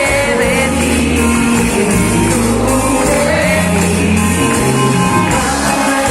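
Upbeat pop song played loud, with sung vocals, shouted voices and a steady bass line.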